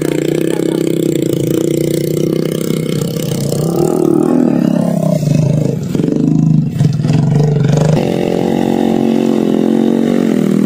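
Small dirt-bike engine revving while carrying a heavy load of grain sacks through soft mud, its pitch dipping and rising several times mid-way, then holding higher and steady near the end.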